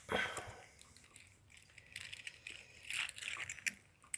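Small metallic clicks and rattles of a removed euro cylinder door lock and its key being handled, with a short scrape at the start and scattered light clinks later on.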